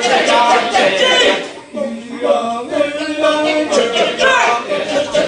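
A group of voices chanting together without instruments. It drops away briefly about a second and a half in, then resumes with a held low note.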